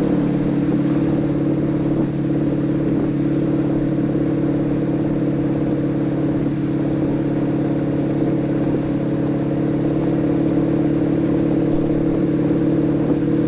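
Wake boat's engine running steadily at speed while towing a rider, a constant hum with the rush of water and wind behind it.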